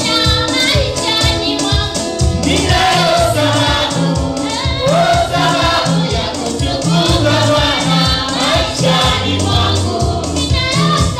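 Live gospel praise song: a woman singing lead with backing vocals, over an electronic keyboard with a steady beat.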